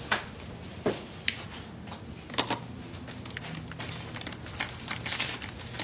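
Quiet room tone with a few scattered soft clicks and taps. About two seconds in, faint low held tones come in: the start of the drama's background score.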